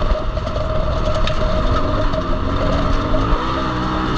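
Turbo Polaris RZR side-by-side's engine running hard off-road, its pitch rising and falling as the throttle changes, over a steady whine.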